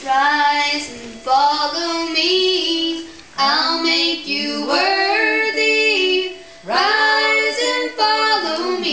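Girls singing a gospel song unaccompanied, in short phrases with brief breaks between them.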